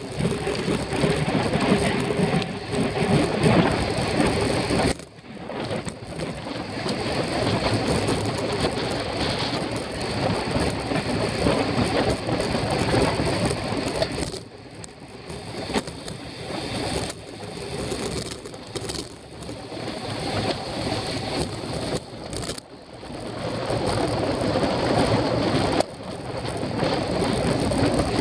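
Wind rushing over a bike-mounted camera's microphone at speed, with road and tyre noise from the bicycle. The rush drops out suddenly for a moment several times and then builds again.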